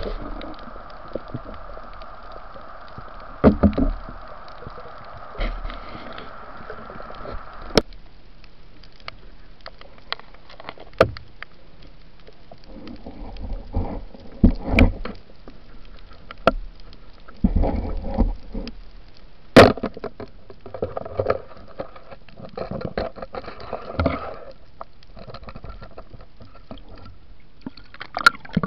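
Muffled underwater sound of water gurgling and bubbling, with irregular surges and scattered sharp clicks and knocks. A steady hum cuts off suddenly about eight seconds in.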